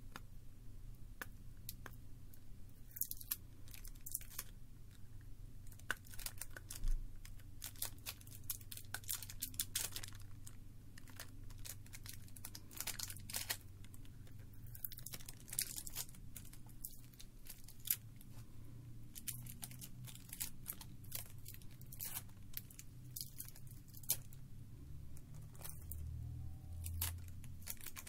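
Close-up handling of small parts from a disassembled iPod Mini: fingers picking at tape, rubber pieces and components, giving irregular sharp clicks and short rustles.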